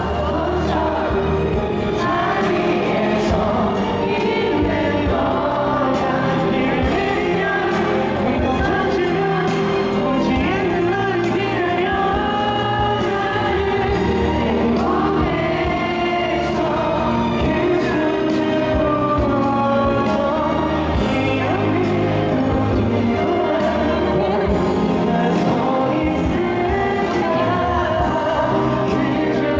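Live K-pop ballad: a male solo singer singing with band accompaniment, recorded from the audience in a concert arena.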